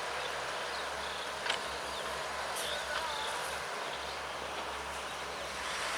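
Sumitomo SH210 long-reach excavator's diesel engine running steadily, with a few short chirps above it.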